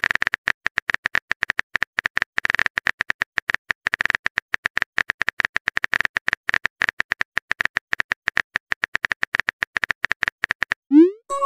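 Phone keyboard typing sound effect: a fast, even run of short clicks, many a second, as a message is typed out. Near the end a rising swoop starts the message-sent tone.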